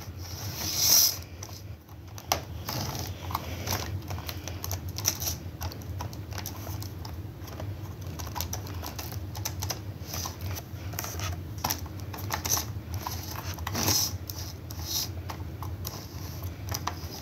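Lifelike Amtrak model train locomotive running on the track: a low steady hum with irregular light clicking and rattling throughout. The owner thinks the locomotive probably needs cleaning.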